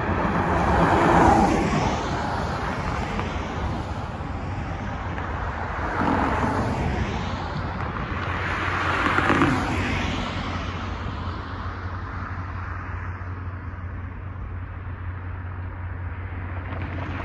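Cars driving past on a multi-lane road over a railroad crossing, each swelling up and fading away: the loudest about a second in, others about six and nine seconds in, over a steady low traffic rumble.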